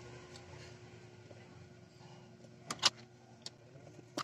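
A few short, sharp clicks from an Allen key working a screw in the electric hammer drill's plastic handle housing, the loudest a quick cluster a little past the middle, with single clicks after it.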